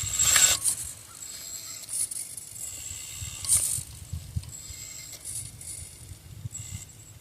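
Axial SCX24 micro RC crawler's small electric motor and drivetrain gears whirring in about four short bursts as it is driven, the loudest just after the start, over a faint steady high whine.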